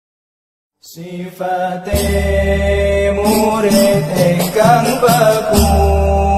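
Javanese devotional song starting up after a short silence: pitched accompaniment over a low steady drone, with a voice singing a wavering, ornamented melody.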